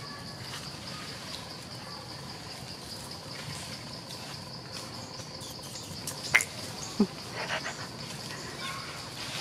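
Insects droning steadily at a high pitch in forest undergrowth. Two short, sharp sounds cut in about six and seven seconds in, the second a quick falling one.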